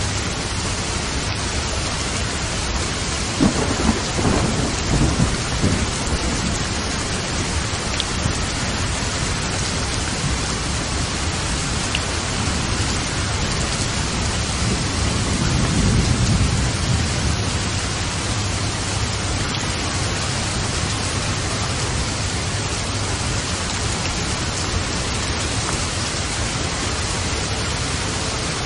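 Steady rain with thunder: a crackling peal of thunder about four seconds in and a low rolling rumble around the middle.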